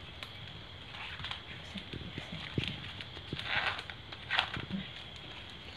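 Fresh green leaves crinkling and soft clicks as a leaf-wrapped rice cake is handled and tied with string, with a couple of louder rustles a little past the middle.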